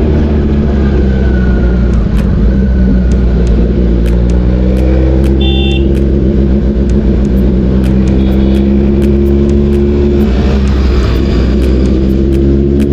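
Kawasaki ZX-10R inline-four engine running under way, its pitch climbing steadily as the bike accelerates, dropping at a gear change about ten seconds in, then climbing again.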